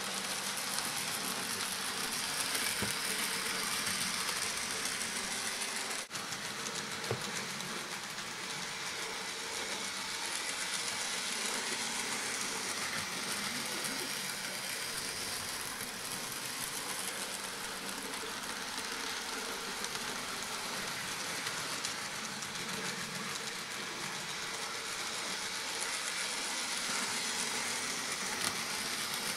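N gauge model diesel locomotives running: small electric motors whirring, with the wheels rolling on the track, steady throughout.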